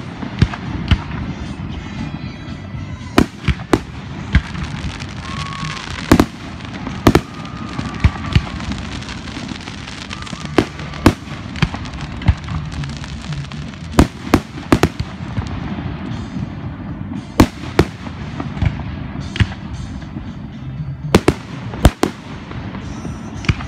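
Fireworks display: aerial shells and firecracker-type charges going off in an irregular run of sharp bangs, about one a second, over a continuous crackle and low rumble.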